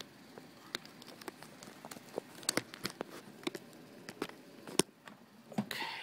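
Handling noise: scattered small clicks and light knocks of an HDMI cable plug and a Mini DisplayPort-to-HDMI adapter being fitted together, with a short rustle near the end.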